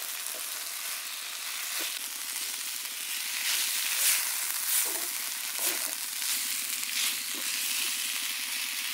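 Onion, red chilies and ginger stir-frying in hot oil in a stainless steel wok: a steady sizzle, with a few short strokes as the spatula turns the vegetables.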